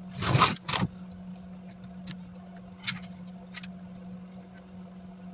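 Hands handling plastic laptop screen parts: a short scraping rustle at the start, then a few sharp plastic clicks and small ticks, over a steady low hum.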